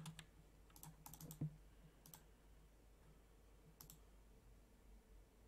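Near silence with a few faint clicks of a computer keyboard and mouse: a quick cluster about a second in, one near two seconds and one near four seconds, over a faint low steady hum.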